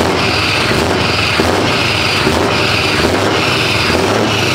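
Scania R560's V8 diesel engine running loudly through its open exhaust pipe, a steady sound with a regular pulsing in its upper hiss about every two thirds of a second.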